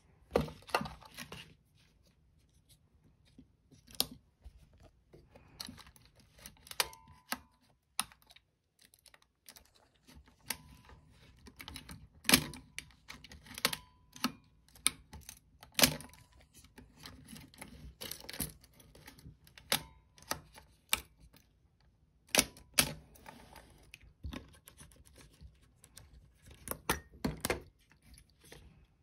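Nikon EM 35mm film SLR being handled and operated: an irregular run of sharp mechanical clicks and knocks from its controls and body, some much louder than others.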